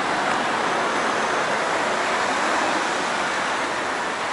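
Steady hiss of road traffic, with no single vehicle standing out.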